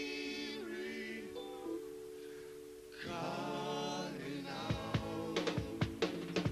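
Reggae band playing live: vocal harmonies sung over a held keyboard chord, which carries on alone for a moment before the voices return. About two-thirds of the way in, sharp drum hits come in.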